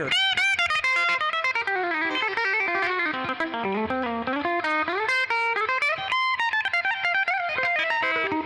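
PRS CE24 electric guitar on a humbucker setting, played through an amp: a fast single-note lead run with several string bends.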